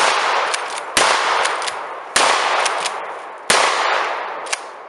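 Four gunshots fired in quick succession, about a second apart. Each one trails off in a long echoing decay with a few fainter sharp cracks after it.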